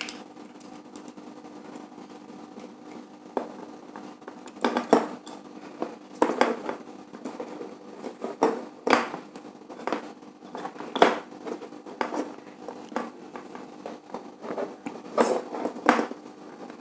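Irregular small clicks and taps of a screwdriver working the terminal screws of a plastic switch and bulb holder, with hands handling the wires.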